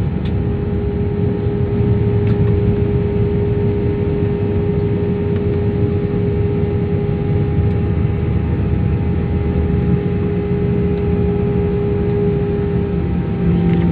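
Airliner jet engines and cabin noise heard from inside the cabin while the plane taxis: a steady whine over a low rumble. Near the end the engine note shifts and grows louder.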